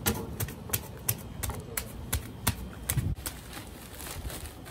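A quick, irregular run of sharp clicks and knocks, about two or three a second.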